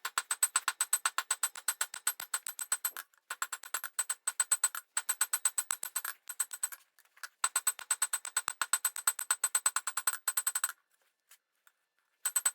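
Rapid hammer blows on hot leaf-spring steel on an anvil, about five a second with a metallic ring, as the tong reins are drawn out; the runs of blows break off briefly about three, seven and eleven seconds in.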